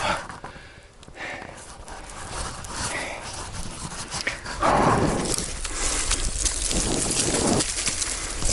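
A person breathing hard in heavy, noisy breaths while climbing a steep slope on foot.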